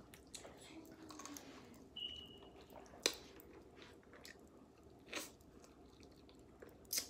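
Quiet eating sounds: crab shell being cracked and pulled apart by hand, with faint chewing and sucking. A few sharp snaps of shell stand out about three seconds in, about five seconds in and near the end.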